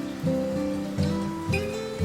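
Background music: acoustic guitar plucking chords in a steady rhythm, a note or chord about every half second.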